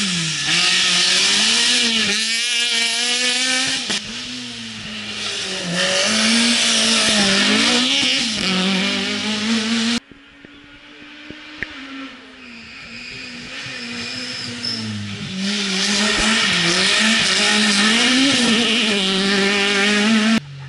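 Rally cars at full throttle on a tarmac stage: the engine note rises and falls sharply with each gear change and lift over a loud exhaust rasp. The recording cuts about halfway, and a second rally car is then heard approaching, getting louder, revving hard.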